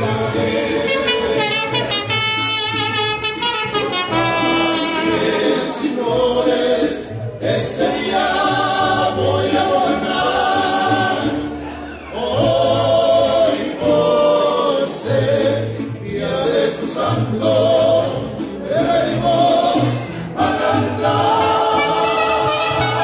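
Several voices singing a religious song together in unison, accompanied by acoustic guitars.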